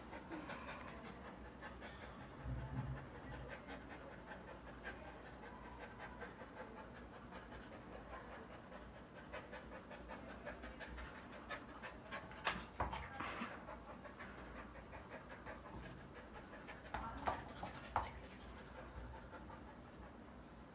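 Bakharwal puppy panting and gnawing on a braided toy, a steady run of small clicks and breathing. A few louder, sharper clicks come about twelve to thirteen seconds in and again around seventeen to eighteen seconds.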